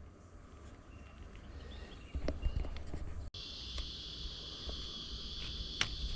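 Footsteps and scattered snaps of brush with a low rumble; about three seconds in the sound cuts, and a loud, steady, high-pitched cicada drone takes over, with a sharp snap near the end.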